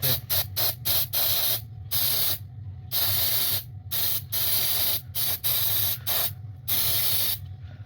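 Aerosol solvent cleaner sprayed in about a dozen short, hard blasts, a few lasting around a second, onto an oxygen sensor to flush carbon and dirt out of its blocked holes. A steady low hum runs underneath.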